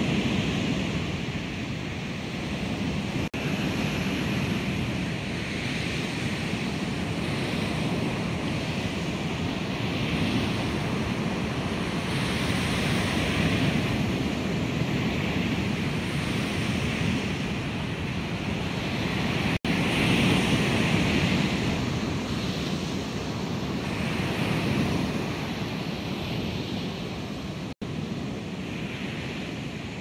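Ocean waves crashing on a shore, from sampled surf recordings layered over one another so that the rush swells and fades every few seconds. The sound cuts out for an instant three times.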